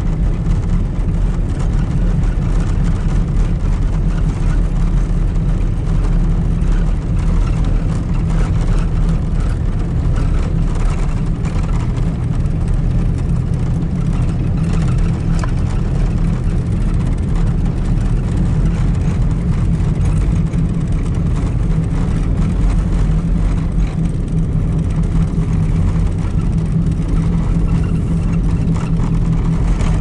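Steady low drone of a four-wheel-drive vehicle's engine and tyres on a snow-covered road, heard from inside the cabin while driving at an even pace.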